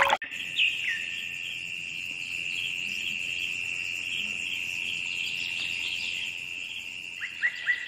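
Insects trilling steadily at a high pitch, with a short chirp under a second in and a few more near the end.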